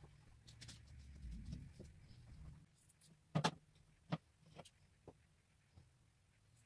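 Quiet handling of fabric and craft materials on a table: a low rustle for the first couple of seconds, then two sharp clicks about three and a half and four seconds in, and a few fainter taps after.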